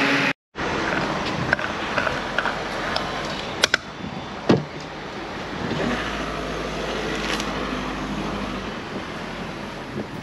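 Filling-station diesel pump humming as it dispenses, stopping abruptly just after the start. Then steady forecourt background noise with a few sharp clicks and knocks around three and a half to four and a half seconds in.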